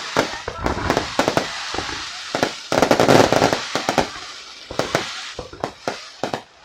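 Fireworks display going off: a rapid run of bangs and crackling, with the loudest burst about three seconds in.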